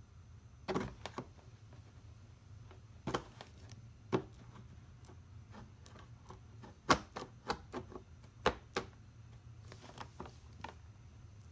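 Soldering-iron tip tapping and scraping on the cracked plastic front fender of an ATV while welding the crack: about a dozen sharp, irregular clicks and light knocks, some in quick pairs, over a low steady hum.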